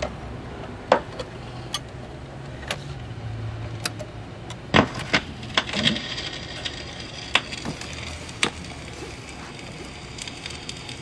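Magnavox console record changer cycling between records: scattered clicks and clunks from the changer mechanism as the next record drops from the stack, over a low hum.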